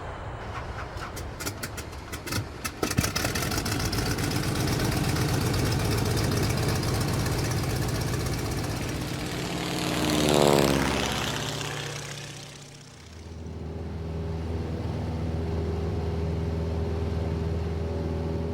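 A sequence of aircraft sound effects. An engine starts with a run of quick pops over the first few seconds and settles into steady running. About ten seconds in, an aircraft passes by loudly with a falling pitch, then fades, and another engine is heard idling steadily with a low hum.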